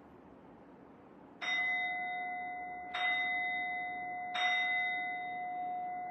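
Handheld singing bowl struck three times with a striker, about a second and a half apart. Each strike sets off a clear ringing of several steady tones that builds on the last and keeps sounding after the third strike.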